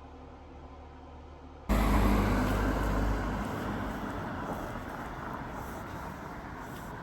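Road traffic noise: a motor vehicle heard close by, starting suddenly about two seconds in with a loud low rumble that slowly fades.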